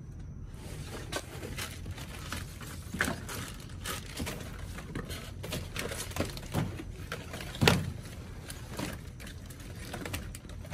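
Crinkling and rustling of plastic packaging, paper and cardboard as gloved hands pick through discarded packaged goods inside a dumpster, in short irregular bursts, with a sharper knock about three-quarters of the way through.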